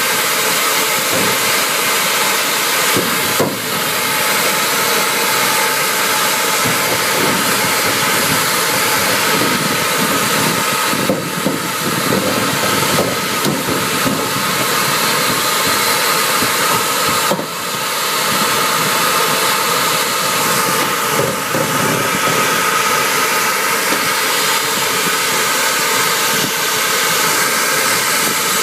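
Duct-cleaning vacuum running inside a sheet-metal return air duct: a loud, steady rush of sucked air as the hose works over the dust, dipping briefly twice.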